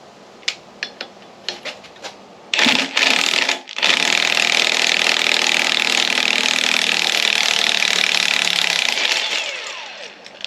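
A power wrench removing the harmonic balancer bolt on a small-block Chevy 350: a few light clicks of tools, a short burst about two and a half seconds in, then the wrench runs steadily for about five seconds and winds down near the end.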